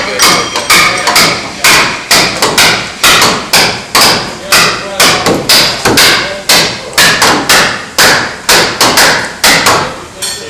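Hammer blows falling rapidly and steadily, about two to three a second, each ringing briefly, as shipwrights fasten planking onto a wooden ship's hull.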